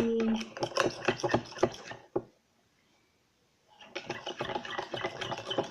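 Iron spoon stirring a wet slime mixture in a metal bowl: rapid scraping and clinking strokes that break off for a second or so in the middle.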